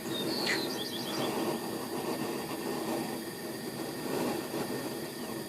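Steady rushing background noise, with a few short, high bird chirps in the first second and a half.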